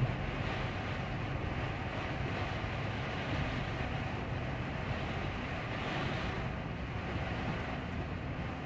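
Steady cab noise of a heavy truck in heavy rain: the diesel engine runs low under an even wash of rain and road-water noise.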